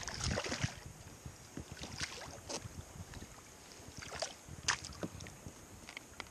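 A hooked bass splashing at the surface beside a kayak, loudest in the first second. Scattered smaller splashes and knocks follow as the fish is landed by hand.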